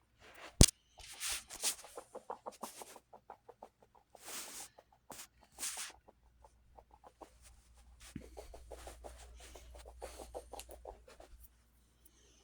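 Brush roll of a vacuum's turbo pet tool spun by hand: a sharp click about half a second in, then three runs of rapid plastic ticking as the roll turns, with short scraping noises between. Spinning freely like this shows the brush roll is not jammed.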